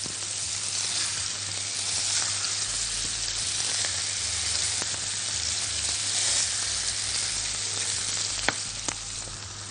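Chicken kofta balls sizzling steadily as they fry in butter in a frying pan, stirred and turned with a silicone spatula. Two light clicks near the end.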